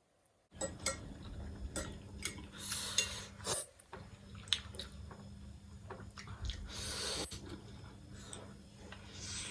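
Close-miked eating of spicy ramen noodles: slurps and chewing with utensils clicking against the bowl, over a steady low hum. The audio cuts in abruptly about half a second in.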